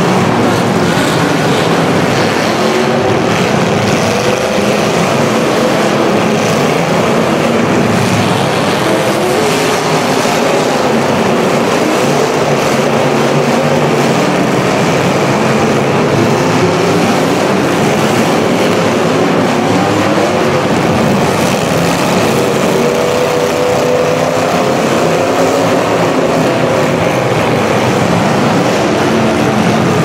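Demolition derby cars' engines, straight out of open exhaust stacks, running and revving together in a loud, continuous din whose pitch rises and falls as the drivers throttle up. Occasional knocks of the cars ramming one another show through.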